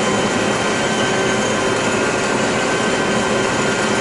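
John Deere 9600 combine running steadily while harvesting corn, heard from on board as an even, constant machine noise with steady hums running through it.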